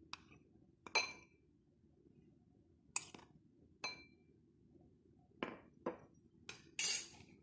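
A cup knocking against the rim of a glass bowl while flour is tipped out of it: about seven sharp clinks at irregular intervals, some ringing briefly, with a longer scraping knock near the end.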